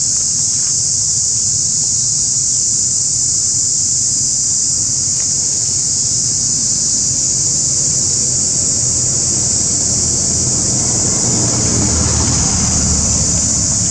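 Steady, high-pitched drone of an insect chorus, with low wind rumble on the microphone that swells near the end.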